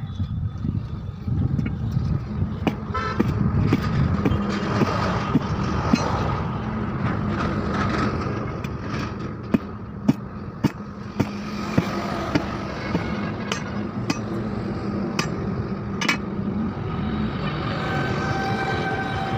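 Tyre-fitting work on a tractor: sharp, irregular knocks, like hammer blows on the tyre and rim, over a steady engine-like hum with occasional horn-like tones.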